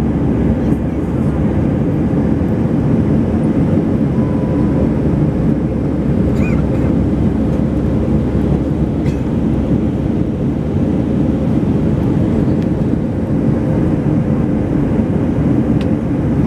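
Steady low rumble of an airliner's jet engines and rushing airflow, heard inside the passenger cabin during the climb after takeoff, with a few faint clicks.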